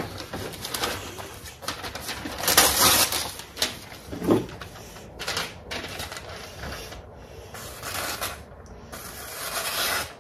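A freshly sharpened VG10 kitchen knife slicing through a glossy paper sheet held in the hand: a series of hissing cuts and paper rustles, the loudest about two and a half seconds in. It is a paper-cutting sharpness test, after which the sharpener judges the edge sharper but still carrying some burr.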